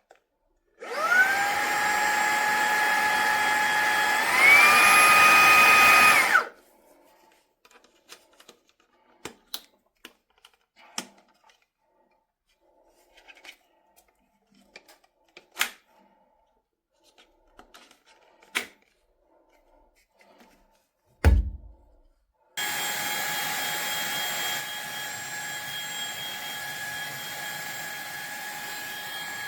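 Fanttik Slim V8 Apex cordless handheld vacuum's motor switched on and whining up to speed, stepping up to a higher, louder whine about four seconds in, then switched off about two seconds later. After a pause with small handling clicks and a low thump, the motor starts again and runs with a steady whine.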